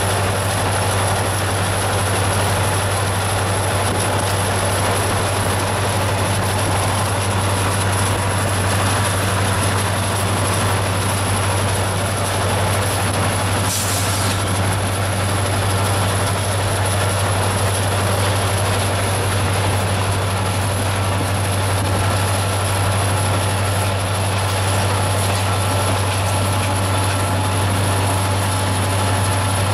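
Steady low drone of a Canadian National diesel-electric locomotive running at speed, heard from a pacing vehicle together with its road and wind noise. A brief hiss about halfway through.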